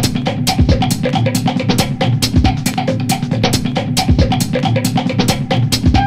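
Background music with a steady drum-kit beat.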